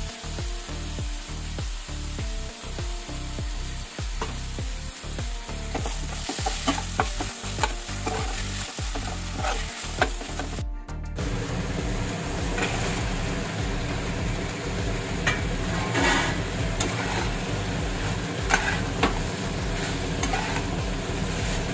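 A spatula stirs and scrapes through vegetables and sauce frying in a non-stick kadai, with a steady sizzle under repeated short scrapes against the pan. The sound breaks off briefly about halfway, then resumes a little louder as the fried chicken pieces are tossed in the masala.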